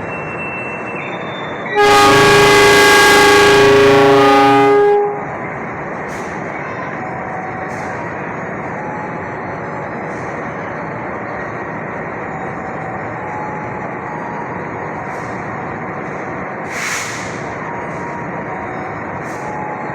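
CC 206 diesel-electric locomotive sounding one horn blast of about three seconds, a chord of several tones, starting about two seconds in over a steady rumble of the train. A short hiss near the end.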